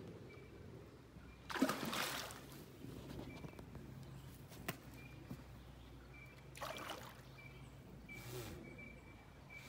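Water splashing in shallow creek water: three short splashes, the loudest about a second and a half in, with a single sharp click in between.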